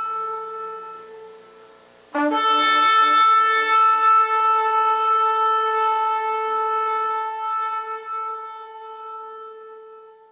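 Shofar blasts, each a single steady note: the first fades out, then about two seconds in a new long blast starts sharply and is held, slowly dying away near the end.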